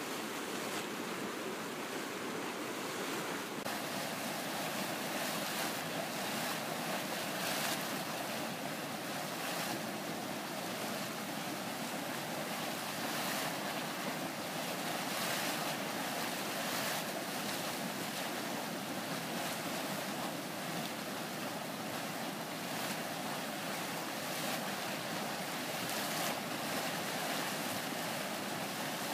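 Volcanic hot-spring steam vents and a boiling spring pool giving off a steady rushing hiss of escaping steam and churning water.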